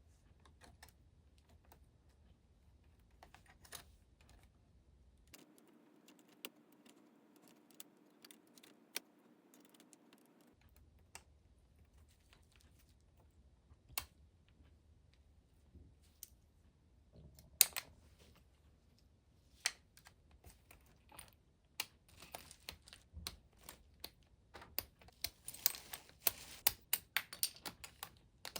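Keys being pressed on a keyboard: scattered single clicks at first, turning into quick continuous typing near the end.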